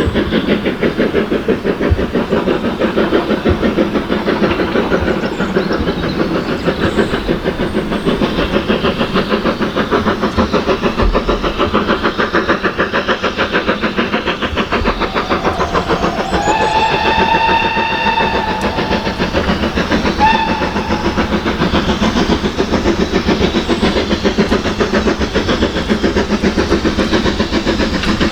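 Steam locomotive working along the line with rapid, continuous exhaust beats. About two-thirds of the way through it sounds its whistle in one blast of nearly two seconds, then a short toot.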